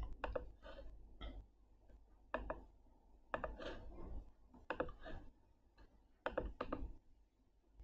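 Faint clicking of a computer mouse, in small groups of a few clicks about once a second.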